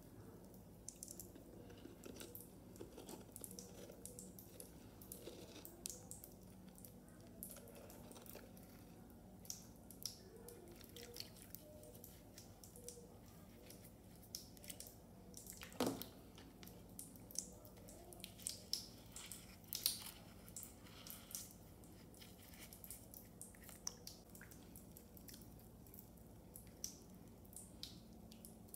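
Faint drips and small wet squishes of bath water as a hand handles a soft, half-dissolved bath bomb, scattered irregularly, with a few sharper ones around the middle, over a low steady hum.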